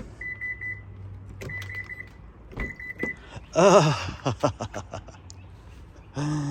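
Three short, trilled beeps of a Subaru Ascent's warning chime in the first three seconds, then a man's effortful grunt while clambering out of the car, followed by a few light clicks and knocks.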